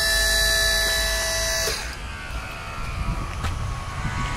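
Hydraulic lift pump motor of a Raymond 24-volt electric ride-on pallet jack whining steadily while the forks are powered up, cutting off abruptly under two seconds in. After it stops there is a fainter low rumble with a few light clicks.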